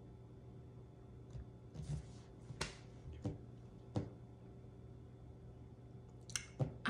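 Quiet room tone with a steady low hum and a few soft, short clicks between about two and four seconds in, and again near the end.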